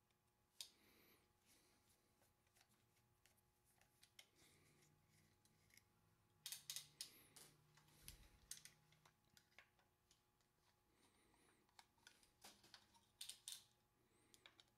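Mostly near silence broken by faint metallic clicks and scrapes of a screwdriver working the cap screws on a Columbia automatic drywall taper, in clusters about six to nine seconds in and again a little before the end.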